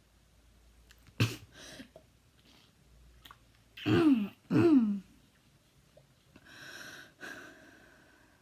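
Habit cough: a sharp cough about a second in, then two loud voiced coughs half a second apart, each falling in pitch, and a noisy breath near the end.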